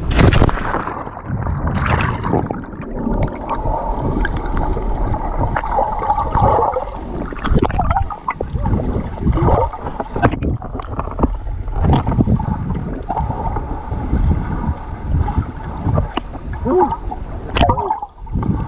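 Lake water heard through an action camera held underwater: a muffled rumble with bubbling and gurgling as the camera moves through the water, after a loud rushing burst at the start as it goes in.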